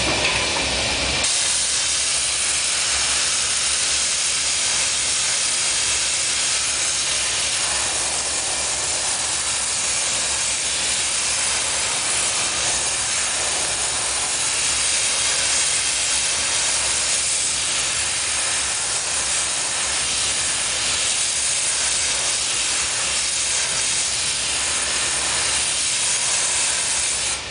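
Hand-held gas torch on a hose hissing steadily as its flame plays on a glass sphere being worked at the bench.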